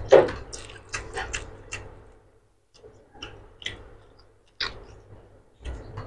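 Eating by hand: a run of short, irregular wet clicks and smacks as rice and egg curry are mixed by the fingers on a steel plate and eaten, densest in the first two seconds and sparser after.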